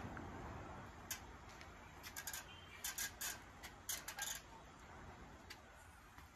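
Faint scattered clicks and light metallic knocks from a loaded barbell shifting on a squat rack's hooks as it is gripped, set on the shoulders and lifted off. The clicks come singly and in short clusters of two or three.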